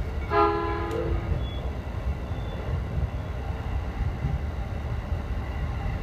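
A train horn gives one short toot of under a second near the start, over the steady low rumble of the train running on the track.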